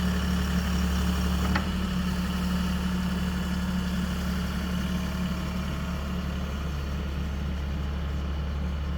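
Backhoe engine running steadily at an even idle-like speed, with one short click about a second and a half in.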